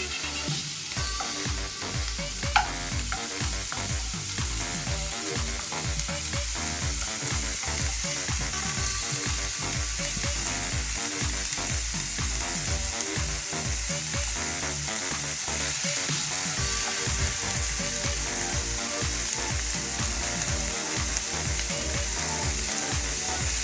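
Finely chopped red onion sizzling as it fries in a nonstick frying pan, stirred and scraped around with a plastic spatula. One sharp tap stands out about two and a half seconds in.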